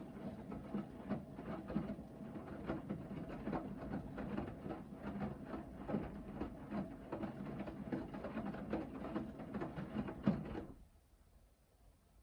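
Hoover VHD 9163 ZI front-loading washing machine in its main wash, the drum turning with a motor hum while the wet laundry tumbles and thuds irregularly. The tumbling stops abruptly about ten and a half seconds in as the drum pauses between turns.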